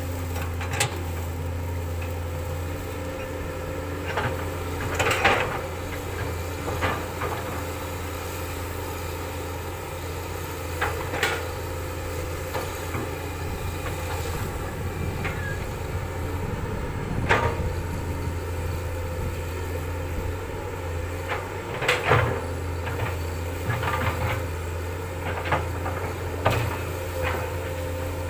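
Komatsu PC200 hydraulic excavator's diesel engine running steadily under load, with sharp cracks and knocks now and then as the bucket tears through brush.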